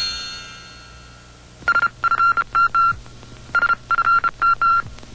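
The fading end of an electronic logo jingle, then three quick runs of short beeps, all at one pitch, like a telephone keypad being dialled.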